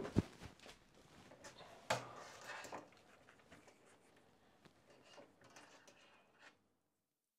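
Hands handling a thin ribbon wire and small plastic connector parts on a desk: a sharp knock just after the start and another just before two seconds in, then fainter rustling and small clicks that stop abruptly before the end.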